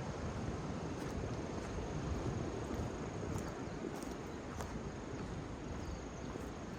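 Outdoor ambience: a steady rushing noise with a thin, steady, high-pitched insect trill running through it and a few faint ticks.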